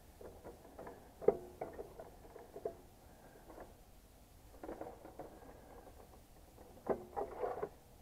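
Scattered small clicks, taps and rustles of hands and pliers working on the wires of a heat pump's contactor. The sharpest click comes about a second in, and a cluster of them near the end.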